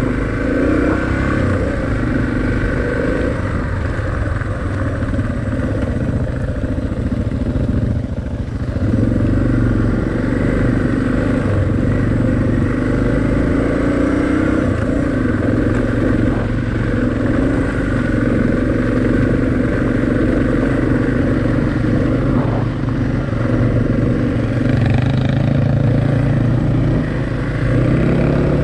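Suzuki DR650's single-cylinder four-stroke engine running under way, its pitch rising and falling with the throttle, with a few brief drops in loudness where the throttle eases off.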